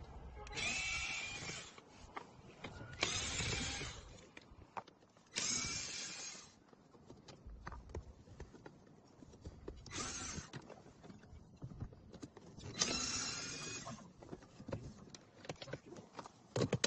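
Cordless electric screwdriver running in five short bursts of about a second each, backing out screws, with small clicks of handling between the bursts.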